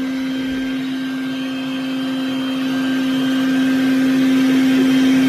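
Bee vacuum motor running with a steady, even hum that grows a little louder toward the end.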